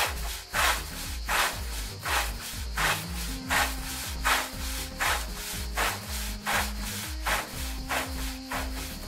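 A brush scrubbing over fire-charred pallet boards in steady, even strokes, about one every three-quarters of a second, clearing loose char and dust from the torched wood. Background music with a bass line plays underneath.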